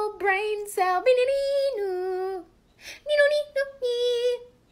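A woman's voice singing unaccompanied, holding long notes that step up and down in a slow melody, with a short pause a little past halfway.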